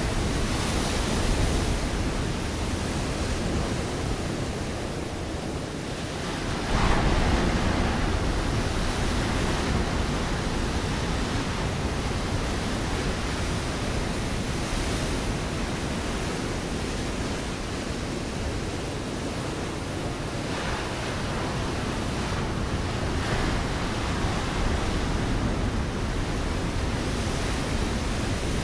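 Ocean waves breaking on a rocky shore: a continuous rushing wash of surf, with one wave crashing in louder about seven seconds in.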